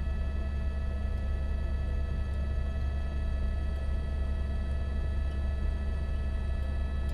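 Helicopter cabin noise in flight: a steady low rotor drone with several constant high whining engine tones above it.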